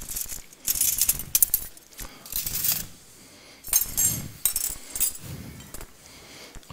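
Dishes and cutlery clinking and clattering as plates are handled and set out for plating, in several short bursts of clinks.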